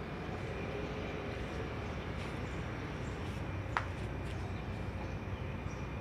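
Suzuki A100's two-stroke single-cylinder engine idling steadily, with one short click a little past halfway.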